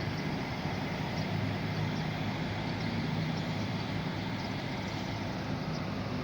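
Intercity coach's diesel engine running steadily with a low hum, over the general noise of a busy bus terminal.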